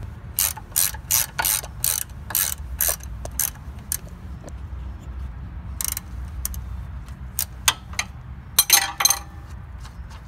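Ratchet wrench clicking in quick back-and-forth strokes as it backs off a shock absorber mounting bolt, about two to three clicks a second, pausing midway and ending with a short cluster of rattling strokes. A steady low hum runs underneath.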